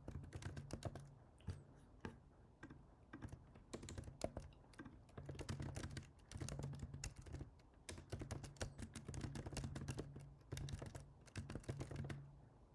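Typing on a computer keyboard: rapid runs of keystrokes in bursts, with short pauses between them.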